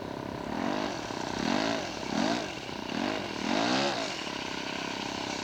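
Engine of a radio-controlled scale Nieuport 11 model airplane running steadily on its landing approach, the sound swelling and fading several times as it moves.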